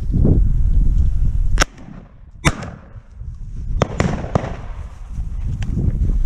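Wind buffeting the microphone, broken by several sharp clicks and pops, the loudest about two and a half seconds in; the rumble drops away suddenly at the first click and builds again over the last couple of seconds.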